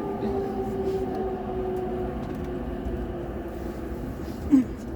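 Ride noise inside a moving electric commuter train car: a steady low rumble with a humming motor whine that sinks slightly in pitch. A brief short sound stands out near the end.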